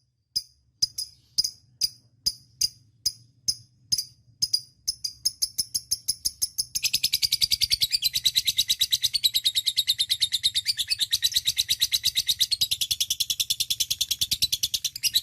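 Lovebird ngekek call: sharp high chirps about three a second that steadily speed up, then from about seven seconds in run together into a long, rapid, unbroken trill.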